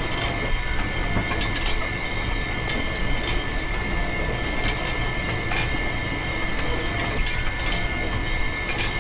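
Small electric motor driving a miniature belt-driven grape crusher, running steadily with a constant high whine and a rattling rumble, broken by irregular sharp clicks.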